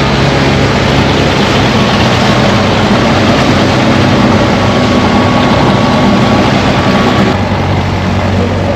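Motorboat engine running steadily under way, with a dense rush of water and wind over it; the rushing eases near the end.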